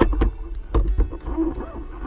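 Wind buffeting the camera's microphone in a steady low rumble, with irregular sharp knocks and clicks from handling the camera and gear.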